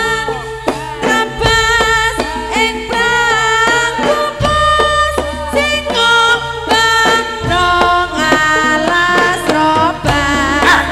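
Javanese jaranan dance music: struck pitched gamelan-style percussion and frequent drum strokes under long low notes, with a singing voice.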